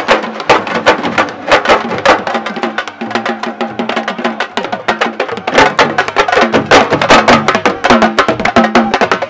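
Sabar drums played fast, with dense overlapping strikes at a loud, steady level, the traditional drumming that accompanies wrestlers in the laamb arena.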